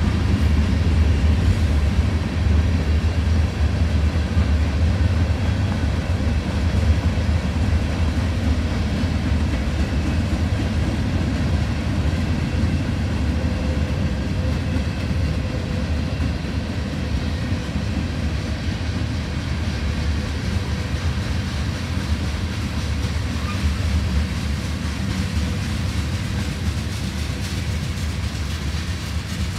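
Freight train cars rolling past: a steady low rumble of wheels on rail, easing slightly as the train goes by.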